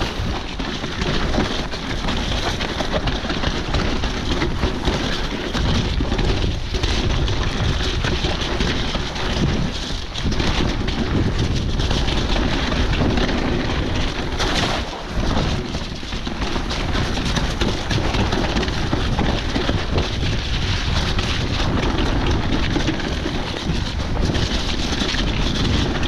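Steady rush of wind and buffeting on a rider-mounted camera's microphone, with rumbling and knocks from an e-mountain bike riding over a wet, rough trail.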